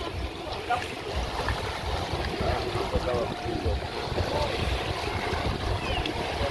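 Wind buffeting the microphone: a gusty, uneven low rumble over a steady outdoor hiss.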